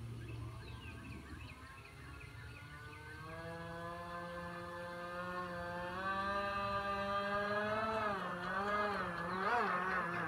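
Upgraded brushless electric motor and propeller of an RC airboat, a whine that climbs in pitch about three seconds in, holds steady, then wavers up and down near the end as the throttle is varied.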